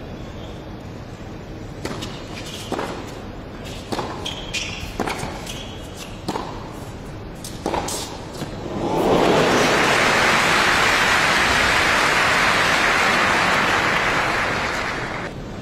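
A tennis rally on an indoor hard court: a run of sharp racket strikes and ball bounces in an echoing hall. About nine seconds in it gives way to loud crowd applause as the point is won, which dies down near the end.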